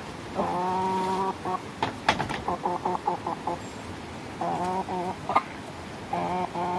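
Chicken clucking and squawking: a long drawn-out call about half a second in, a quick run of short clucks in the middle, and more long calls near five seconds and at the end. A few sharp knocks sound around two seconds in.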